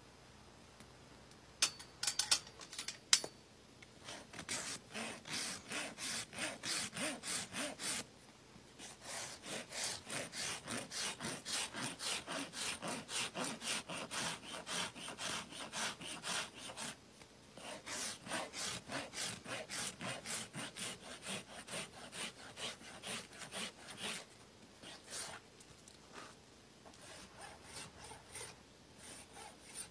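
Hoof rasp filing a horse's hoof: quick back-and-forth scraping strokes, about three a second, in runs of several seconds with short breaks, thinning out near the end. A few sharp knocks come just before the rasping begins.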